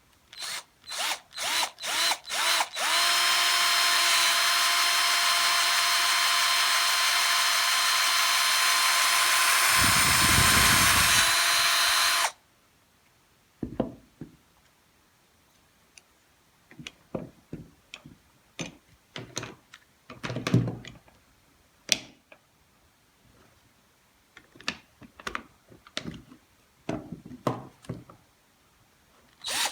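Electric drill blipped in several short bursts, then run steadily for about ten seconds and stopped abruptly, boring a hole for a nut and bolt in an F-clamp repair. Afterwards come scattered clicks and knocks of handling, then more quick bursts of the drill near the end.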